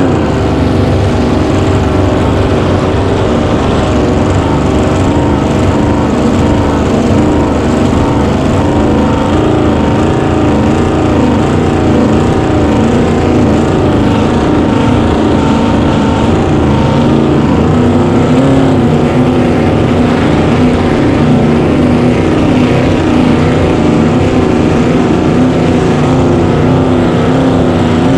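Cracker box race boat's small-block Chevy V8, breathing through open exhaust headers, running hard at high revs, loud and fairly steady with slight rises and dips in pitch.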